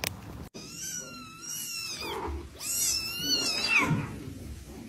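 Domestic cat meowing: two long, wavering calls, each about a second and a half.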